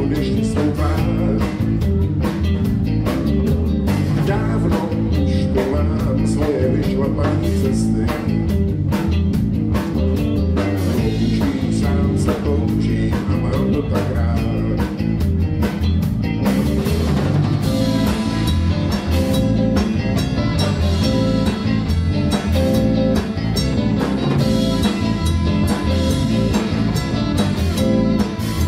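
Live band playing: electric guitars, bass guitar and drum kit, with a man singing lead vocals.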